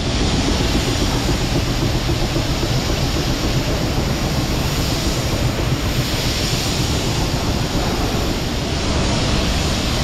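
Steady machinery noise inside a tea factory: an even rumble and hiss with no distinct rhythm, from the processing machines running.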